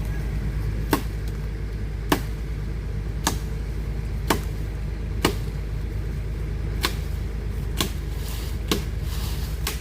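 Komatsu PC200-8 excavator's six-cylinder diesel engine running steadily at a low drone, with sharp clicks about once a second on top.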